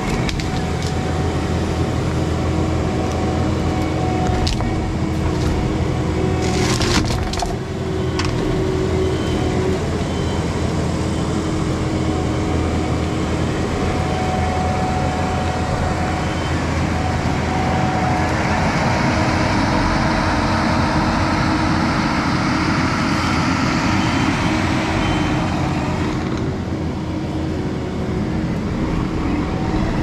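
Kubota skid steer's diesel engine running steadily under hydraulic load while an OMEF tree shear works. About seven seconds in comes a short cluster of sharp wood cracking and splintering as a tree is sheared. Later there is a long rustling rush of branches and leaves.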